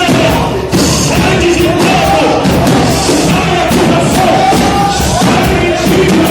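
Worship music with a steady, driving drumbeat and singing voices.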